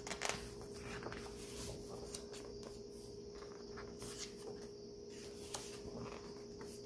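Glossy pages of a hardcover photo book being turned by hand, giving soft paper rustles and light taps, over a steady faint hum.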